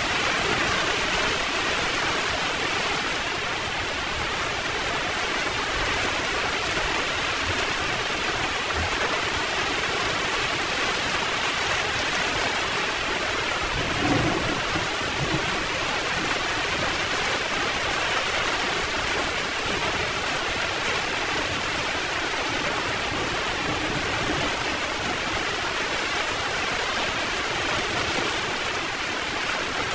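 Heavy rain pouring steadily, with a brief low rumble of thunder about halfway through.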